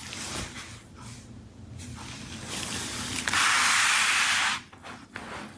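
A hiss that builds up and then turns loud and even for a little over a second past the middle before cutting off sharply, with a few small clicks around it.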